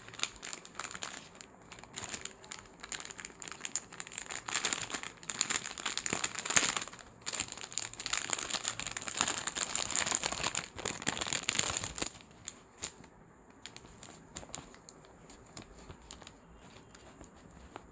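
Clear plastic packaging crinkling as it is handled and unwrapped, dense for about twelve seconds, then dying down to occasional faint rustles.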